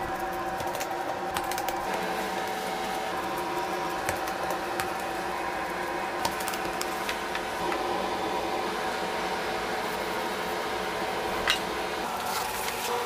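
Steady hum of kitchen machinery holding a few constant pitches, with scattered light clicks and taps and one sharper click near the end.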